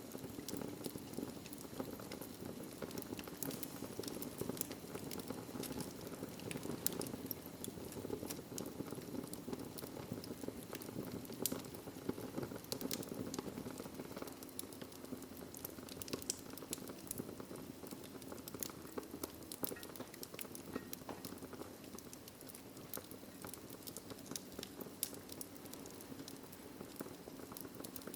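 Wood fire burning in a fireplace: irregular sharp crackles and pops over a steady low rush of flame.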